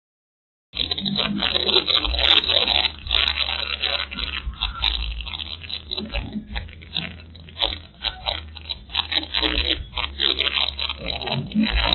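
Car cabin audio through a dashcam's built-in microphone while driving: a steady low engine and road rumble under dense crackling and scraping noise. It starts abruptly about a second in after silence.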